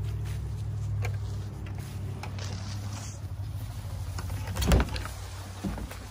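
Small metal clicks as a ratchet strap's hook is worked loose from a wooden shed door's latch, then a loud clunk and a couple of lighter knocks as the door is opened, the clunk about three-quarters of the way through. A steady low hum runs underneath.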